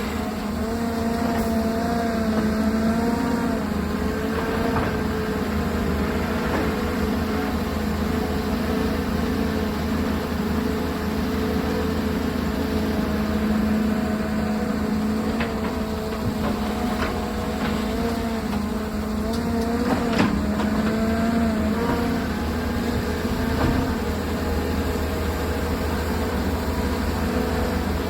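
Volvo excavator's diesel engine running steadily as it works, its pitch wavering slightly, with a few sharp knocks about 5, 20 and 24 seconds in.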